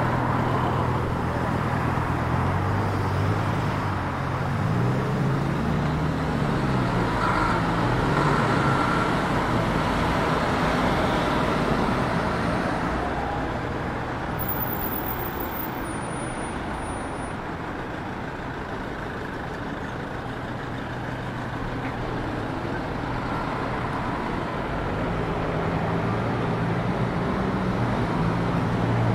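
City street traffic: cars and buses running and passing, with engine pitch rising and falling a few seconds in and again near the end.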